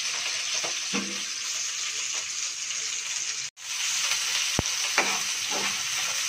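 Sliced onions sizzling steadily in hot oil in a frying pan, with a few knocks and scrapes of a spatula against the pan as they are stirred.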